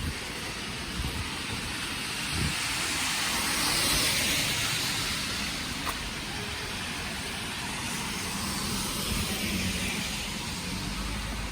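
A car passing on a street: tyre and engine noise swells to a peak about four seconds in and fades away, with a weaker swell from another passing vehicle near the end.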